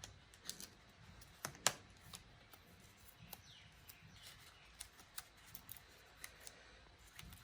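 Quiet handling sounds as a watch sport band is taken out of its packaging: scattered small clicks and faint rustles, with one sharper click about a second and a half in.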